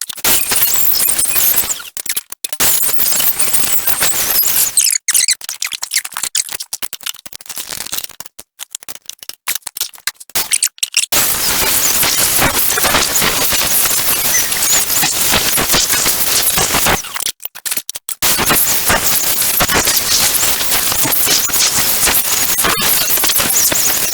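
Welding arc crackling on steel brackets in several long runs, stopping briefly about 2 s, 5 s, 11 s and 17 s in.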